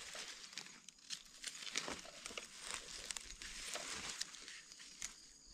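Dry leaf litter and grass crackling and rustling as gloved hands and a knife dig a small mushroom button out of the forest floor, with scattered light scrapes and clicks.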